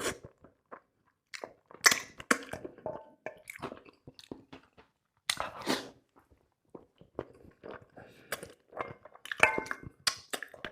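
Close-miked chewing and biting of a person eating: short, irregular mouth sounds with brief silences between them, the loudest about two seconds and again about five and a half seconds in.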